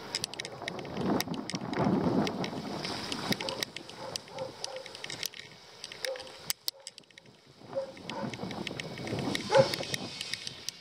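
Bicycle rattling and clicking over a rough, broken concrete and dirt lane, with rumbling wind and tyre noise. A dog barks a couple of times near the end.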